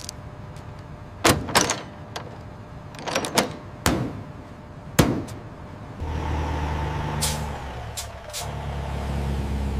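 Several sharp knocks and clunks, then from about six seconds in a heavy vehicle engine running with a steady low hum.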